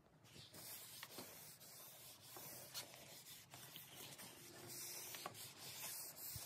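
A cloth rag rubbing boiled linseed oil onto a wooden axe handle: a faint, steady rubbing hiss with a few light ticks.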